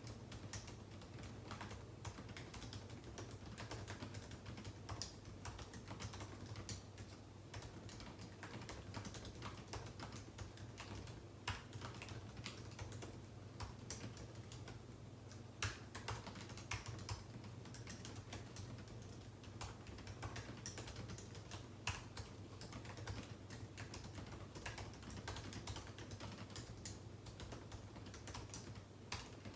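Steady typing on a computer keyboard: a quick, irregular run of key clicks with a few louder strokes, over a steady low hum.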